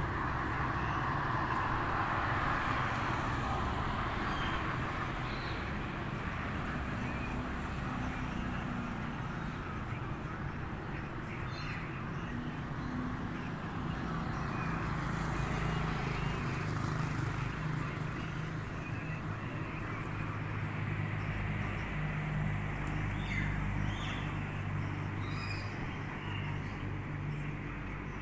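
Street traffic: vehicle engines running with a steady low hum that is strongest in the second half.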